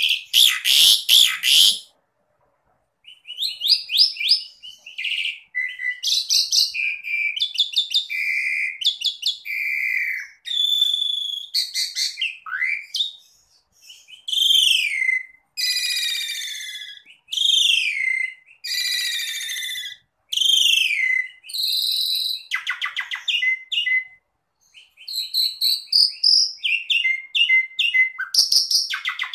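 Asian pied starling singing a long, varied song: falling slurred whistles and runs of fast repeated notes, broken by harsh, scratchy bursts near the start and a little past the middle.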